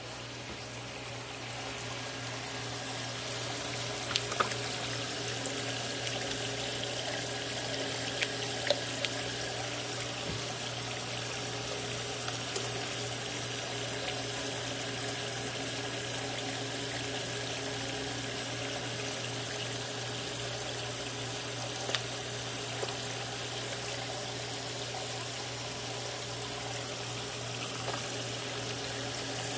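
Turtle tank filter running: a steady trickle of running water over a constant low motor hum, with a few faint clicks.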